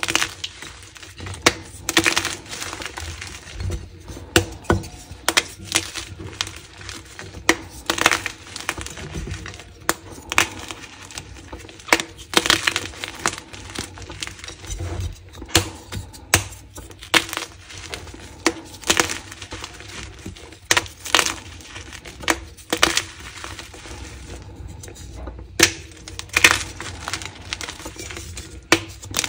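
Dyed gym chalk blocks snapped and crushed between the fingers: many sharp cracks at irregular intervals, with crumbly crunching of chalk pieces and powder in between.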